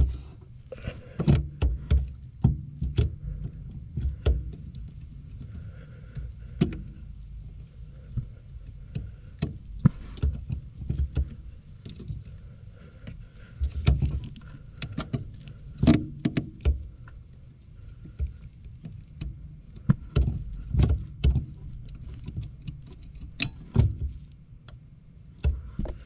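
Hands fitting a new brake light switch at the brake pedal arm under a car's dashboard: irregular clicks and knocks of plastic and metal with light rustling.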